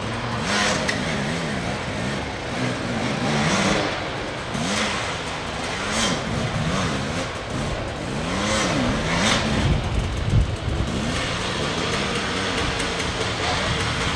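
Dirt bike engine revving up and down over and over in short throttle bursts as the bike climbs slowly over rocks, with a few low thuds about ten seconds in.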